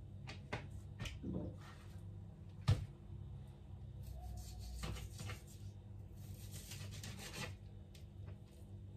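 Kitchen knife cutting raw chicken breast on a cutting board: scraping and light taps of the blade against the board, with one sharper knock about three seconds in.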